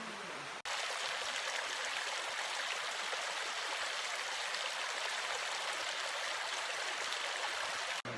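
Heavy rain falling steadily: an even hiss that starts abruptly just under a second in and cuts off near the end.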